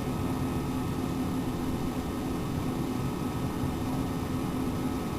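Steady indoor background noise: an even hiss with a faint low hum, unchanging throughout.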